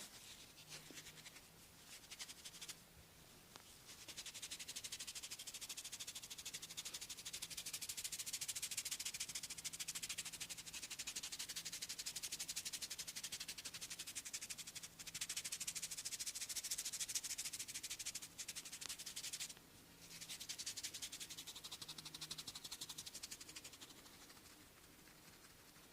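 Hands rubbing and scratching vigorously through hair and over the scalp in a head massage: a dense, hissy friction sound of very fast strokes. It starts a few seconds in, pauses briefly three times, and fades near the end.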